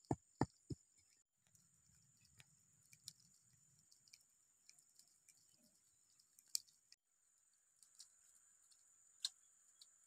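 Wood campfire crackling: a few sharp pops in the first second, then sparse faint crackles, with a single louder pop twice later on.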